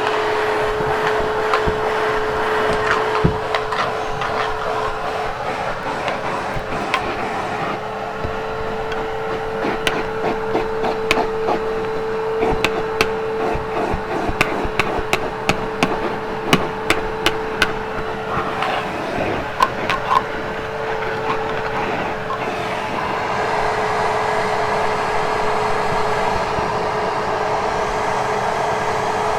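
Hoover Hushtone vacuum cleaner running on carpet with a steady motor whine and rushing air. Through the middle there is a quick run of sharp clicks and knocks.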